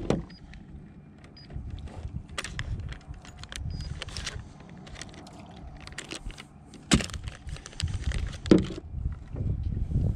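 Handling noise while a smallmouth bass is weighed in a landing net: scattered clicks, rustles and knocks over a low rumble, with sharp knocks about seven and eight and a half seconds in.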